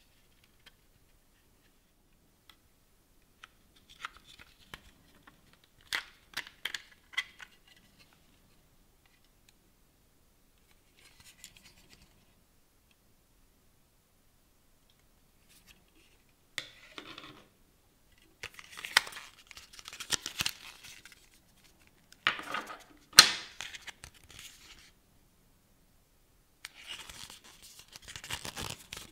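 A small white cardboard packaging sleeve being handled and opened by hand: bursts of card rustling and scraping with a few sharp clicks, separated by quiet gaps. The loudest is a sharp snap about two-thirds of the way through.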